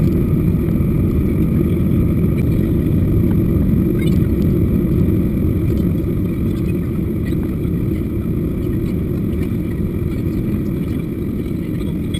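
Jet engine and airflow noise inside the cabin of a Ryanair Boeing 737-800 climbing after take-off: a steady low rumble that slowly gets a little quieter.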